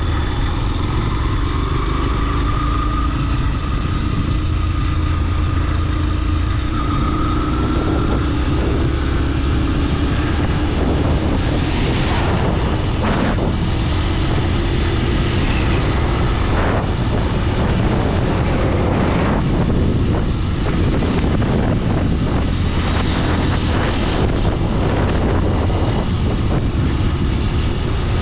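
Road noise of a moving vehicle: a steady low rumble with an engine note that slowly rises over the first several seconds, and several brief whooshes in the middle.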